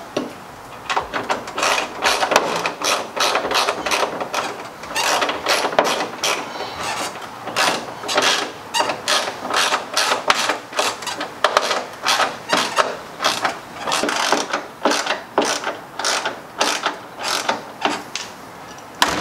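Hand ratchet wrench clicking in repeated short strokes, about two a second with brief pauses, as it tightens the mounting bolts of a rear wing through a car's trunk lid.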